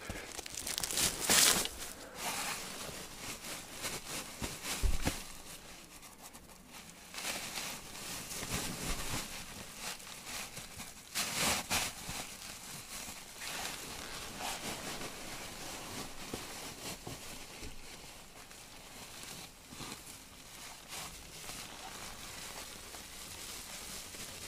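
Irregular rustling and crinkling of debris being gathered up by hand, with a few sharper knocks, the loudest about a second in and about five seconds in.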